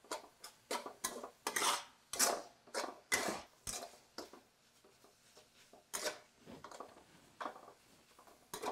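Metal spatula scraping and stirring ground meat paste around a wok, in short, uneven strokes several times a second, with a brief pause about halfway through.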